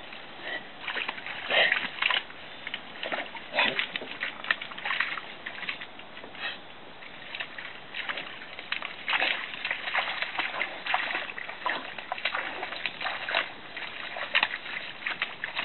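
A Clumber spaniel scrambling out of water up a brushy bank: irregular splashing and sloshing mixed with crackling rustles of dry grass and brush as it pushes through.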